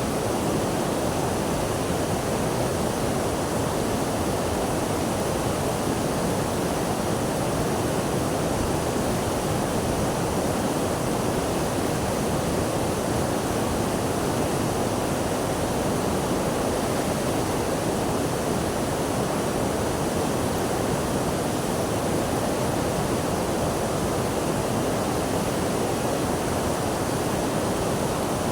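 Rushing water: a steady, unbroken rush with no separate splashes or changes.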